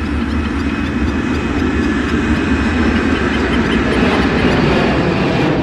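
Loud, steady rumble of passing heavy vehicle traffic, swelling a little about four seconds in.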